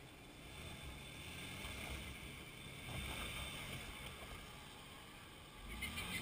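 Jeep Liberty's engine running at low revs as it crawls over a log on a dirt trail, its low rumble swelling as it passes close by, loudest about three seconds in. A short run of sharp crackles comes near the end.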